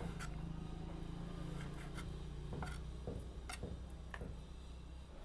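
Kitchen knife slicing raw chicken on a wooden cutting board: soft cutting and scraping with a few irregular sharp taps of the blade on the wood. A steady low hum runs underneath.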